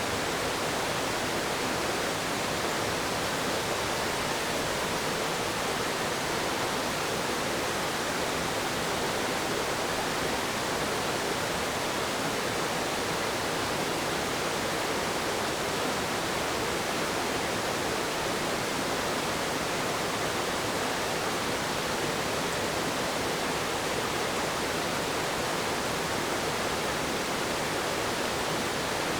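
River water rushing steadily, an even noise that does not change.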